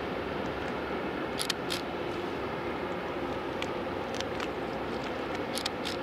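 Steady low drone of a large ship's engines underway, with a faint steady hum. A few faint sharp clicks come through it.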